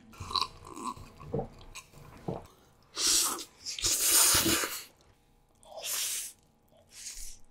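Close-miked eating: quiet chewing and mouth clicks, then four loud slurps of bibim-myeon noodles being drawn in, starting about three seconds in, the longest lasting nearly a second.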